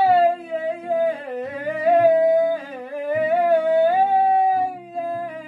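A man singing a long wordless vocal run, holding notes and gliding up and down in pitch with vibrato, into a handheld microphone in a small room.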